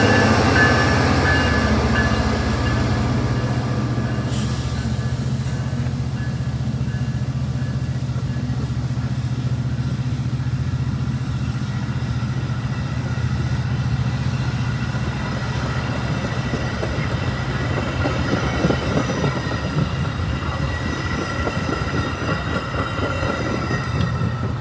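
A train rolling past on the tracks: a steady low diesel drone under the rumble and rattle of cars and wheels, easing slightly after the first couple of seconds.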